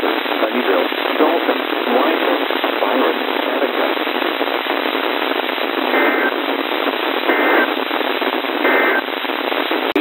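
NOAA Weather Radio reception thick with static hiss, a faint voice under it. About six seconds in come three short bursts of EAS digital data tones, a little over a second apart: the alert's end-of-message code.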